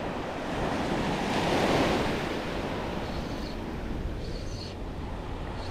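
Ocean surf washing onto a beach, a wave swelling to a peak about two seconds in, with wind buffeting the microphone.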